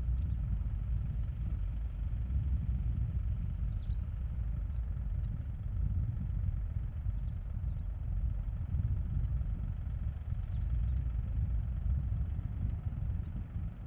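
Steady low rumble of airport background noise, with faint short bird chirps about four times.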